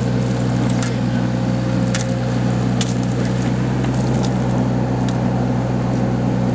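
Backhoe engine running steadily at a constant pace, with a few scattered sharp clicks and knocks as the bucket digs through the dump.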